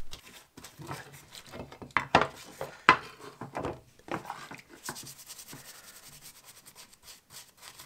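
A paintbrush scrubbing a corroded metal air pistol in a tray of soapy water to work the encrusted mud loose: wet brushing and scraping strokes, irregular at first, then a run of quicker, even strokes from about five seconds in.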